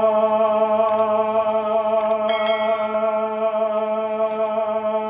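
A man singing one long held note, steady in pitch, with no instrument behind it: the opening of a Saraiki folk song.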